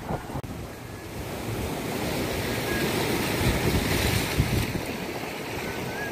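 Sea waves washing and breaking over shoreline rocks, the wash swelling in the middle and easing off, with wind buffeting the microphone.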